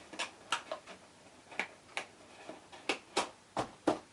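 Card stock being handled as a paper lid is pushed onto a card box: a string of about a dozen short, crisp clicks and taps at uneven intervals, the sharpest about three seconds in and near the end.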